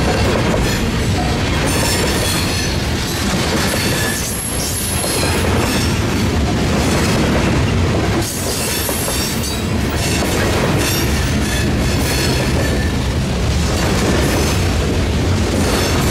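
Loaded coke hopper cars of a freight train rolling past close by, their steel wheels clacking steadily over the rail joints, with a high wheel squeal that comes and goes.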